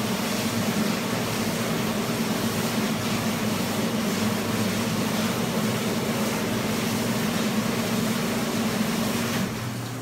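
Door-type commercial dishwasher running its wash cycle: a steady pump hum under a constant rush of water inside the machine. The noise drops off near the end as the cycle finishes.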